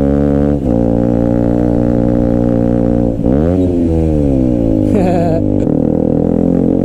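KTM RC 125's single-cylinder engine running under way through a GPR exhaust, a steady drone. The pitch drops briefly about half a second in at a gear change. About three seconds in the revs dip, then climb and fall away again.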